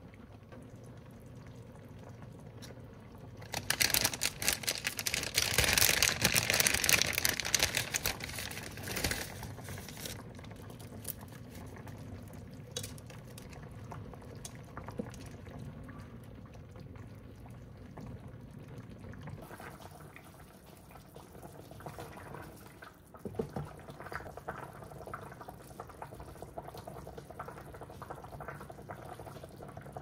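Mala tang broth boiling hard in a stainless steel pot, with steady bubbling. A much louder spell of hissing, spattering bubbling comes a few seconds in and lasts about six seconds.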